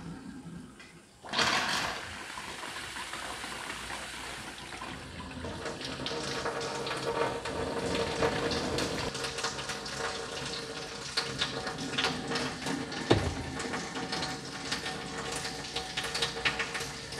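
Water rushing into an APEC ROES-PH75 six-stage reverse osmosis filter system as the cold-water supply pressurizes the freshly changed filters. It starts suddenly about a second in and runs on as a steady hiss with crackling ticks and a faint steady hum.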